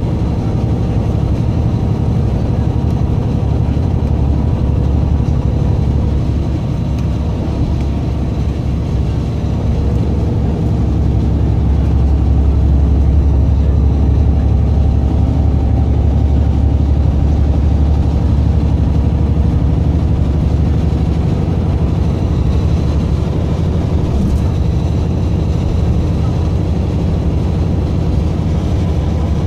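Steady low rumble of a city bus's engine and tyres, heard from inside the cabin while it travels at speed, growing slightly louder midway.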